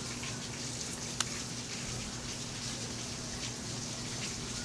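Steady hiss of heavy rain from a storm outside, with a faint low hum under it and one sharp click about a second in.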